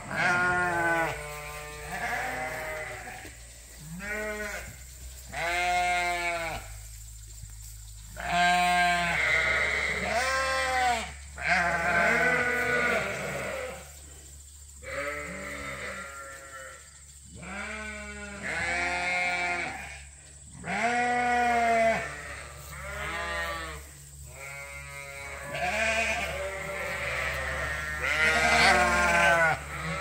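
A flock of ewes bleating, one call after another throughout, several sheep at different pitches, over a steady low hum.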